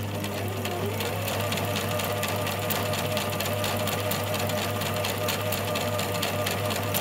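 Electric domestic sewing machine starting up and sewing a zigzag stitch along a fabric edge. The motor whine climbs in pitch over the first second as it comes up to speed, then holds steady, with the needle's rapid clicking running through it.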